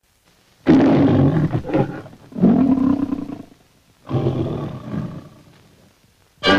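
Lion of the Metro-Goldwyn-Mayer logo roaring three times, each roar loud at the start and trailing off. A brass fanfare of the title music starts right at the end.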